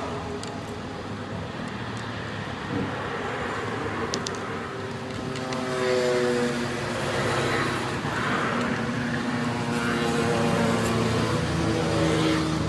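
Motor vehicle engines running and passing, their pitch slowly rising and falling, with a few sharp clicks about four seconds in.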